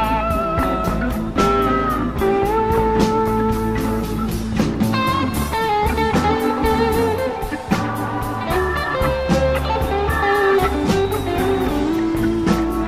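Blues music with guitar leading over a steady bass, with no singing.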